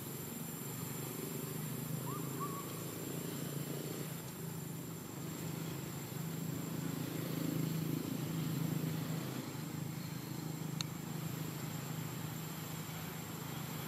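Steady low hum of a distant motor running. A brief high chirp sounds about two seconds in, and a sharp click near the end.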